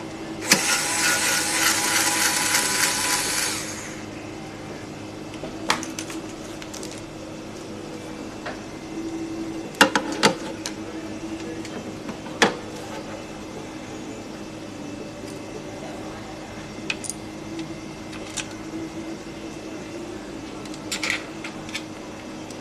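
A small power tool whirs for about three seconds, then stops. Scattered clicks and knocks of parts being handled follow.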